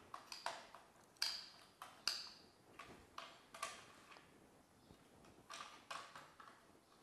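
Faint, irregular clicks and taps of the clamping jaws on a Festool CMS module panel being tightened around a circular saw's base, about a dozen in all, with a lull a little past the middle.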